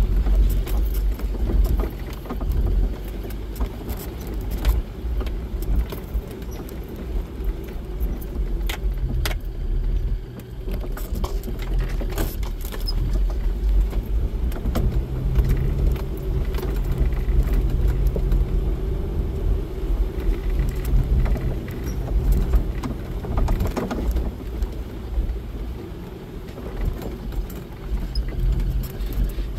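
Jeep Wrangler driving slowly over a rocky dirt trail, heard from inside the cab: a steady low engine-and-road hum with frequent small clicks and rattles as the vehicle jolts over the rough ground.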